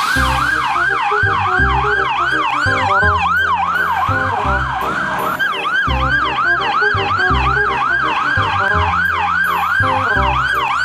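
Police siren in a fast yelp, its pitch sweeping up and down about three times a second without a break, over a thumping beat with a bass line.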